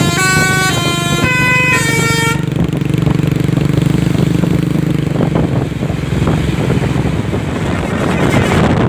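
A truck's telolet basuri multi-tone horn playing a tune of short stepped notes, stopping about two seconds in. Then the truck's engine runs on with a low steady hum, giving way to an even rushing noise of traffic and wind.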